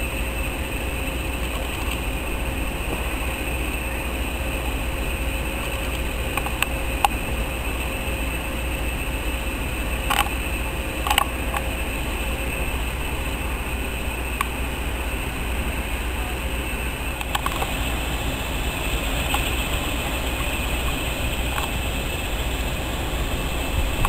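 Diesel shunting locomotive running slowly along the line: a steady low rumble with a faint constant hum above it, and a few sharp clicks in the middle.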